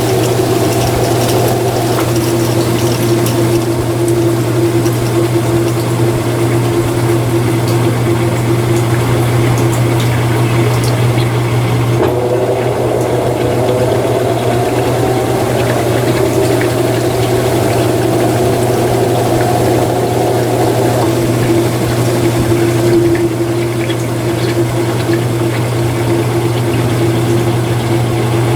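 Mueller Energy 8 kg top-load washing machine draining, its drain pump running with a steady hum and the sound of water being pumped out. A second tone rises in pitch for several seconds around the middle, then settles back to a steady note.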